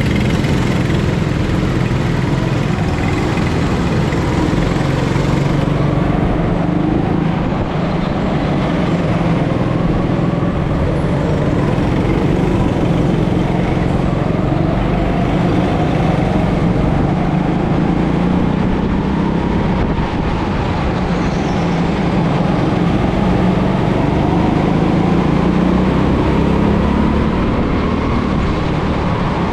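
Go-kart engine running under throttle, its pitch rising and falling as the kart speeds up and slows.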